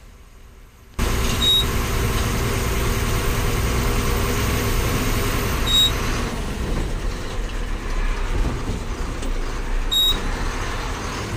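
Diesel engine of a lorry loaded with iron, running steadily under way with road noise. The noise cuts in suddenly about a second in, and a short high beep sounds three times, about four seconds apart.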